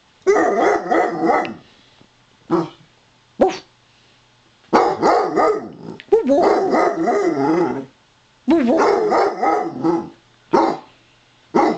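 Basset hound giving her warbling bark-howl, the 'Wookie chuckle': four long wavering bouts of a second or more, with short single yelps between them.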